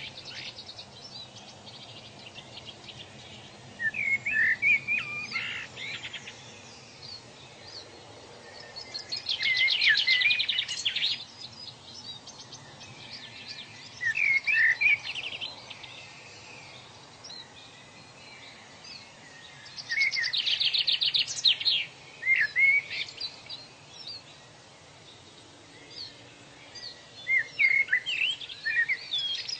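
Songbirds singing in repeated phrases about every five or six seconds: a rapid high trill and clusters of short chirps, over a faint steady background hiss.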